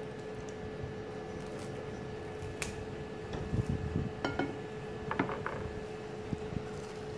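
Eating sounds: mouth chewing on fried pork skin and fingers picking food from a plate, with a few soft low thuds and light clicks from about three to five and a half seconds in. A steady hum runs underneath.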